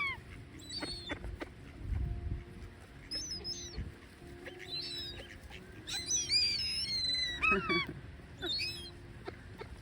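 Seagulls calling, many short overlapping high cries that come thickest about six to eight seconds in. Wind gusts buffet the microphone.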